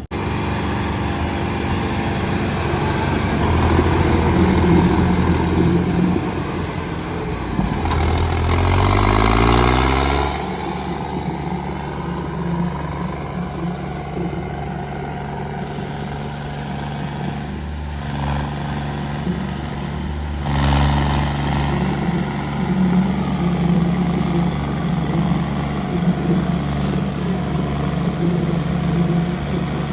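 Tractor's diesel engine running, revved up briefly about eight seconds in with a rising pitch, then settling back to a steady run.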